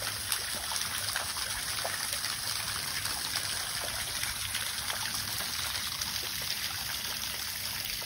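Small waterfall at low flow, a thin trickle of water splashing into a pool below a rock ledge: a steady splashing hiss dotted with small dripping ticks.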